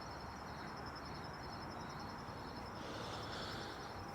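Insects trilling steadily outdoors: a quiet, fast, evenly pulsing high-pitched trill over a low background hum.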